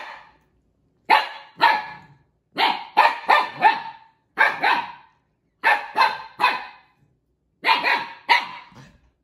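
Siberian Husky puppy barking, about sixteen short, sharp, high-pitched barks in quick bunches of two to four: protest barking at an older dog that has taken its toy.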